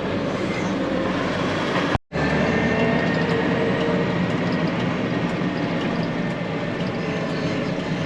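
Combine harvester running steadily at work, a dense mechanical drone with faint steady whines on top. It breaks off for an instant about two seconds in, then carries on unchanged.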